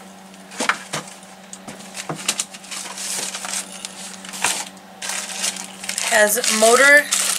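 Plastic packaging crinkling and rustling as toys are handled and pulled out of a box, with scattered light clicks and knocks.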